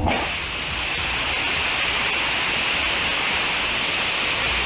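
DHX-400 Nimbus hybrid rocket engine, burning paraffin wax with nitrous oxide, firing on a test stand: a steady, even roar with a strong hiss, holding at one level throughout. The combustion casing is failing at the side during this firing.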